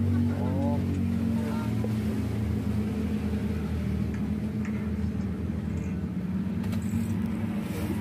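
A steady low mechanical hum, as from a running motor, at an even level.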